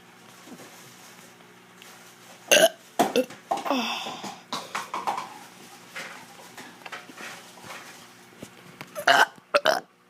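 A child burping on purpose, over and over: a run of burps starting about two and a half seconds in, some falling in pitch, then another quick group of burps near the end.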